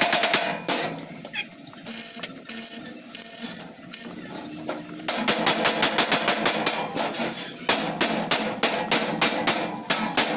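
Hammer blows on the sheet-metal floor panel of a tricycle. They come in quick runs of about six or seven strikes a second at the start and again about halfway through, with only scattered knocks in between, and slow to two or three strikes a second near the end.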